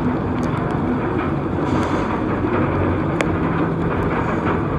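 Wild Eagle wing coaster train climbing its chain lift hill: a steady mechanical hum and rush of noise, with a few scattered sharp clicks.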